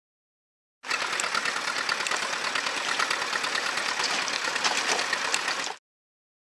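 Tractor diesel engine running with a fast, dense clatter. It starts about a second in and cuts off abruptly near the end.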